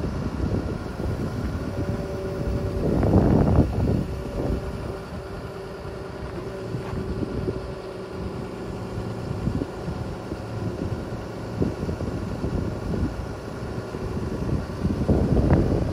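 Huddig 1260C City backhoe loader's diesel engine running steadily with its hydraulics working the backhoe arm, a steady hum holding under the engine noise. Wind buffets the microphone, with louder gusts about three seconds in and near the end.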